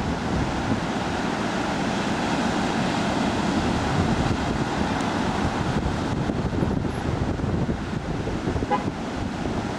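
Rough Gulf storm surf breaking in a steady roar, with wind buffeting the microphone.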